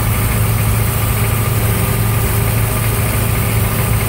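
Military M998 Humvee engine and drivetrain running steadily as it drives down the road, heard from inside the cab: a loud, even low drone.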